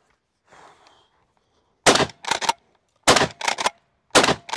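Pump-action 12-gauge shotgun, a Rock Island All Gen 12, fired three times about a second apart. Between shots the pump is worked back and forward with two sharp clacks.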